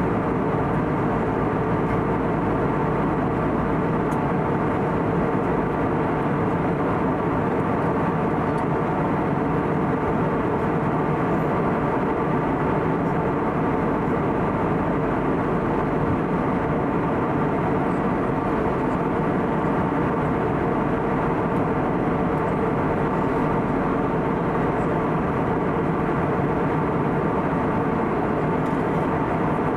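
Steady cabin noise of an Airbus A320neo with CFM LEAP-1A engines in flight: an even rush of air with a low engine hum and faint steady tones, unchanging throughout.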